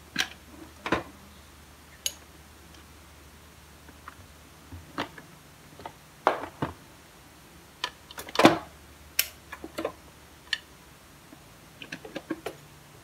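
Irregular clicks and knocks from handling a black electric pressure cooker and its lid, mixed with bumps of the phone camera being moved, over a faint steady low hum. The loudest knock comes a little past the middle.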